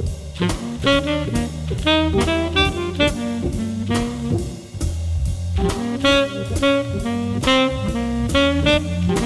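Instrumental jazz background music with a saxophone lead over a drum kit keeping a steady beat.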